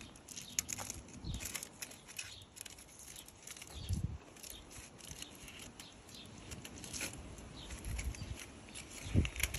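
Faint rustling and crinkling of aluminium foil handled by gloved hands on a motorcycle exhaust pipe, with scattered small clicks and a couple of soft low thumps, about four seconds in and near the end.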